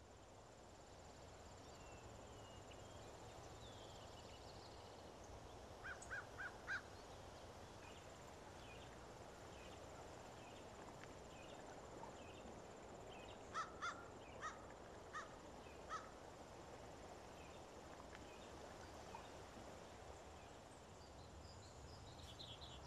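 Faint woodland ambience with a steady hiss and scattered distant bird chirps, broken by short bird calls: four in quick succession about six seconds in, and another run of five between about fourteen and sixteen seconds in.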